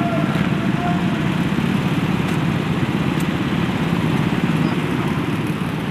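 Several go-kart engines idling together, a steady low rumble.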